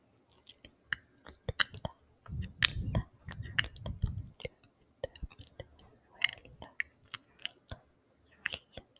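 Close-miked ASMR mouth sounds: quick wet clicks and smacks in irregular clusters, with a denser, lower run of them between about two and four seconds in.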